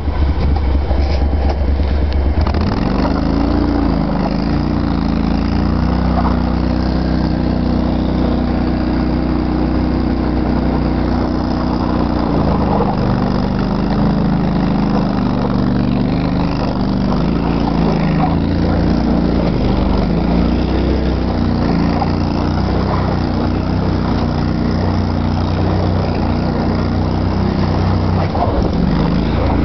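ARGO Avenger 8x8 amphibious ATV's engine running steadily, heard from on board, its pitch rising and falling as the throttle changes while the tracked machine works through swamp mud and water.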